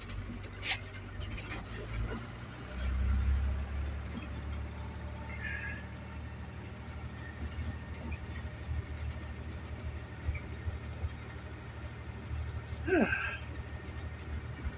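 Dually pickup truck driving slowly through deep snow, heard from inside the cab as a steady low rumble that swells about three seconds in. A few light clicks come early on, and a short sound sliding in pitch comes near the end.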